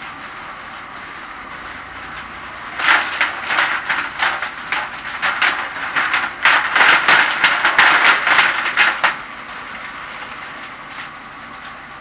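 Homemade leaf shredder driven by a washing-machine motor, running steadily. From about three seconds in until about nine seconds there is a loud, rapid, irregular crackling clatter as dry leaves are fed in and chopped up.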